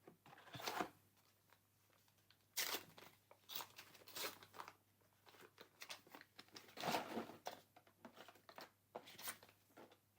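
A trading-card booster pack wrapper being torn open and crinkled, in several short bursts of tearing and rustling.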